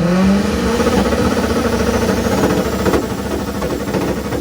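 Mitsubishi engine held on a two-step launch-control rev limiter: it climbs onto the limiter at the start, then holds a steady high rev with rapid crackling pops and stutter for about four seconds.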